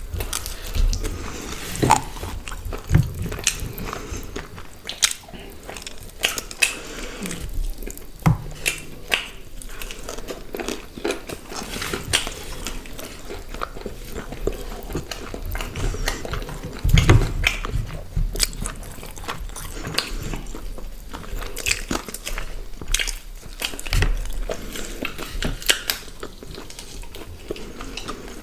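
Close-up eating sounds: people biting and chewing grilled chicken and paratha, with irregular crunches and mouth clicks.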